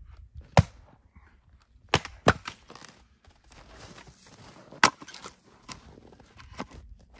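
Small hatchet chopping into a round of firewood on a chopping block to split it: sharp wood-splitting strikes, the loudest about half a second in and just before five seconds, with a close pair around two seconds. Fainter knocks and rustling of split wood being handled come between.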